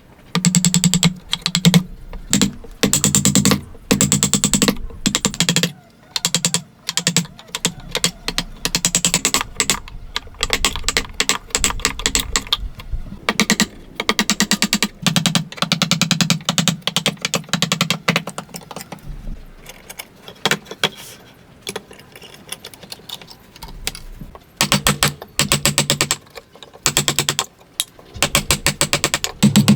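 Hand saw cutting wood in repeated strokes, each stroke a fast run of rasping clicks from the teeth, with short pauses between runs of strokes.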